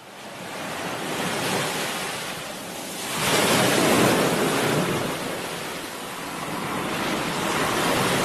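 Ocean surf, a steady rushing wash of waves that fades in and swells loudest about three to five seconds in and again near the end.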